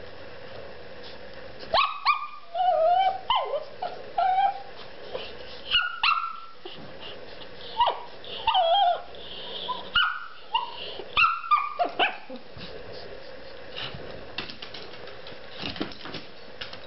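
Shih Tzu play-barking while being teased with a toy: a string of short yips and whiny barks in quick bursts, falling quiet near the end.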